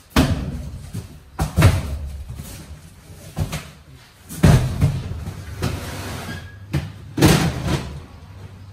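Repeated knocks and rattling clatter, about seven in all, as metal roll carts and stacked plastic totes are shifted and set down inside a metal truck trailer, over a low steady rumble.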